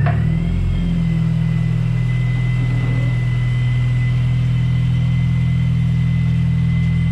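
Mini Cooper S R53's supercharged 1.6-litre four-cylinder engine idling steadily, with a thin steady high whine over it, while the power steering system is run to flush through new fluid.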